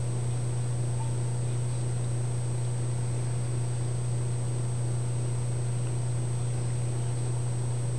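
Steady low hum with hiss and a faint high-pitched whine, unchanging, with no distinct sounds over it.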